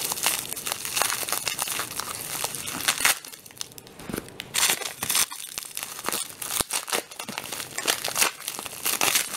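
Packaging crinkling and rustling close by as things are handled in a cardboard shipping box, in irregular spurts with short sharp scrapes.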